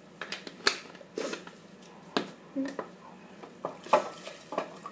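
Kitchen utensils clinking and knocking against a cooking pot and dishes: about eight sharp, irregular knocks.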